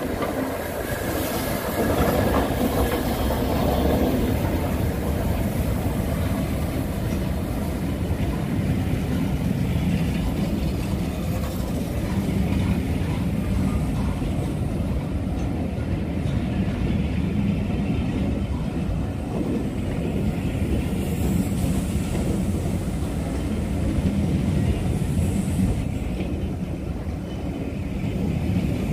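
Steam-hauled passenger train passing through a station: the A1 Pacific steam locomotive 60163 Tornado goes by at the start, then its long rake of coaching stock rolls past with a steady rumble of wheels on the rails.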